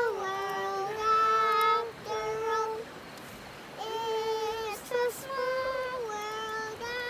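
A high singing voice holding a slow melody of long, steady notes, stepping between a few pitches with short breaks between phrases.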